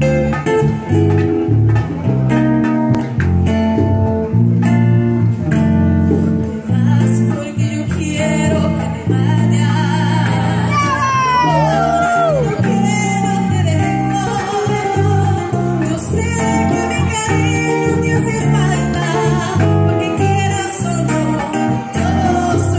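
Live band of guitar, bass guitar and bongos playing a Latin song while a woman sings through a microphone and PA speaker. There is a run of quick falling pitch glides about halfway through.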